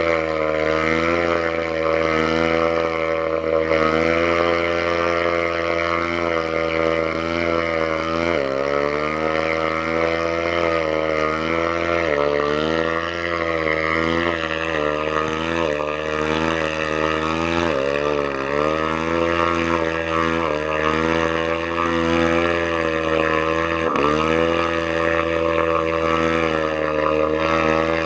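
Engine running steadily, its speed dropping sharply and picking back up several times: stumbling, near to coughing, from water that has got into it.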